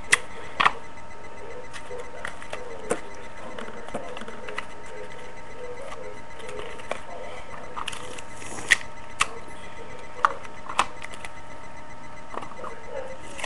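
Hands handling a roll of sticky tape and pieces of paper on a wooden table: scattered light taps and clicks over a steady webcam hiss.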